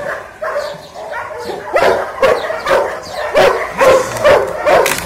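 German Shepherd barking repeatedly at an agitator during protection training. The barks get louder and quicker from about two seconds in, reaching about two a second.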